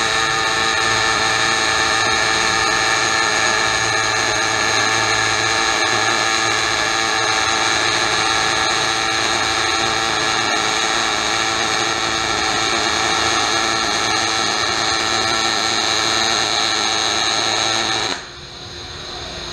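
Robotic Synchro-feed MIG welding arc running on aluminium wire, depositing a bead layer by layer in wire-arc additive manufacturing: a steady, even buzz. It drops noticeably quieter near the end.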